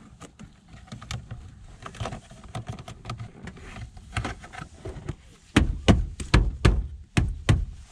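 Light plastic clicks and handling noise in a car's interior, then about six heavy knocks in quick succession from about five and a half seconds in: a plastic pillar trim panel being thumped back into its clips by hand.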